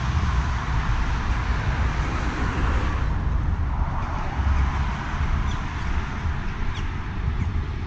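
Road traffic: cars passing on a multi-lane road, a steady rushing noise with a deep rumble underneath, swelling a little around two to three seconds in.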